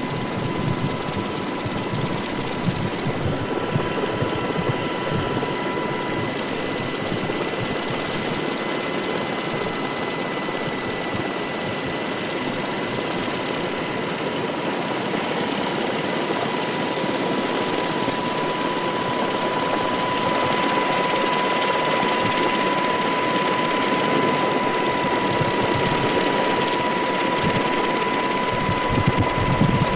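Aircraft engine noise heard from aboard: a steady even rush with a constant high whine. It grows slightly louder in the second half.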